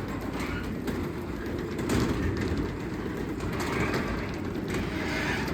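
Craftsman 3/4 hp belt-drive garage door opener (139.57915) closing the garage door: a steady motor-and-belt rumble under the door's own rattling roll, the door louder than the opener. The noise drops away at the very end as the door comes to rest.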